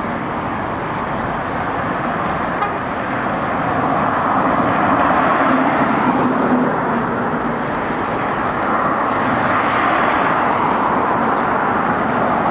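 Steady road traffic on a busy city street, with cars passing and the noise swelling as vehicles go by.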